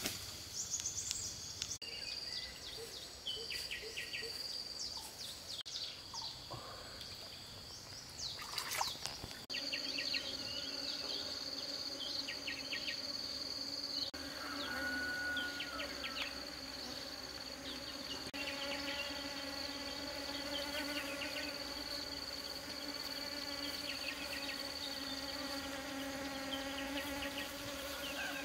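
Short bird chirps over a steady high insect whine. About nine and a half seconds in, a bee's low, steady buzz comes in and keeps going, with birds still chirping over it.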